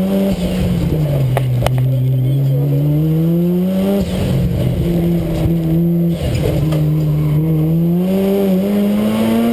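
Mazda RX-7 race car's engine under hard driving, heard from inside the cabin: revs ease off, climb for a few seconds, drop sharply about four seconds in, hold steady, then climb again toward the end. Two sharp clicks come about a second and a half in.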